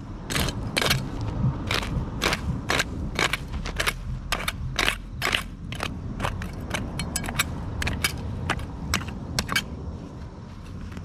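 A hand weeding tool scraping and chopping into dry soil and weed roots, with weeds being torn out, in quick strokes about three a second. The strokes stop about a second before the end.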